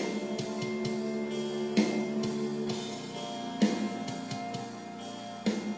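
Instrumental outro music with sustained tones and a strong accented beat about every two seconds.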